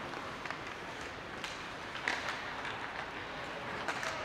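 Ice rink sounds during hockey play: a few short, sharp scrapes and clacks of skates and sticks on the ice over a steady arena hum.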